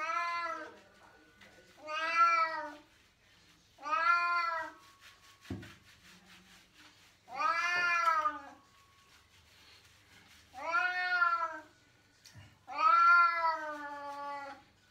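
Domestic cat meowing repeatedly while being lathered in a bath: six drawn-out meows, each rising and falling in pitch, about every two seconds, the longest near the middle.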